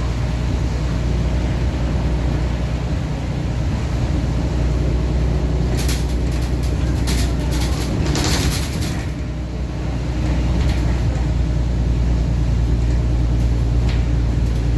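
Mercedes-Benz Citaro Euro 3 city bus engine running with a blown exhaust, heard from inside the bus. Short hisses come in the middle and once near the end, and the engine eases off briefly before pulling again.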